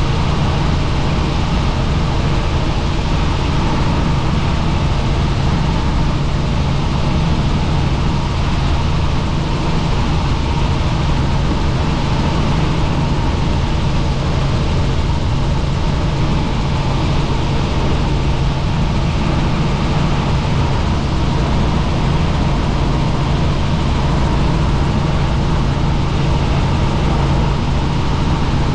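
Helicopter running steadily, a loud unbroken hum of engine and rotor over a wide rushing noise.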